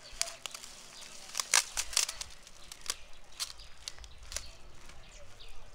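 Dry leaf strips crackling and rustling as the man wrapped in them moves, a run of sharp crinkles that is loudest about one and a half to two seconds in.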